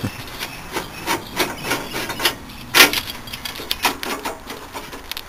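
Irregular clicks, scrapes and knocks of a screwdriver working at the sheet-metal straps and plastic fan shroud of a wrecked window air conditioner being pulled apart, with one louder knock about three seconds in.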